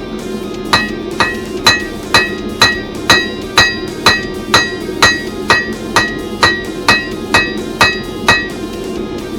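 Blacksmith's hammer striking hot steel on an anvil in a steady rhythm, about two ringing blows a second for some seventeen strikes, starting just under a second in. A steady roar from the forge runs underneath.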